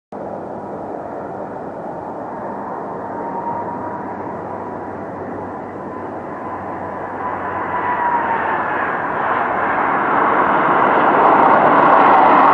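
Airplane engine noise, a dense rush with a thin whining tone that dips slightly about two-thirds of the way through. It grows steadily louder over the last few seconds.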